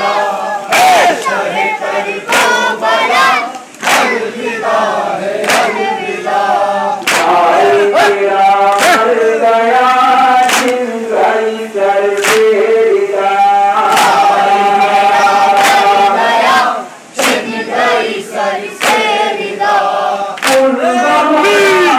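Group of men chanting a Shia farewell noha (lament) in chorus, with matam: hands striking chests in unison, about one sharp slap every 0.8 seconds, keeping the beat of the lament.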